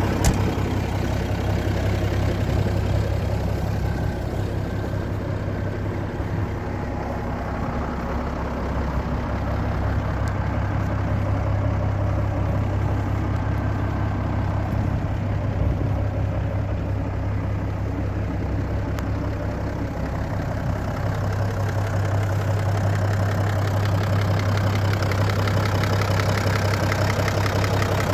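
Zetor 16245 tractor's six-cylinder diesel engine idling steadily.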